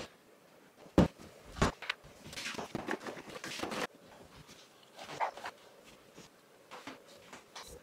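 Household tidying sounds: two sharp knocks about a second in, then a stretch of rustling and shuffling, then scattered light footsteps in slippers on the floor.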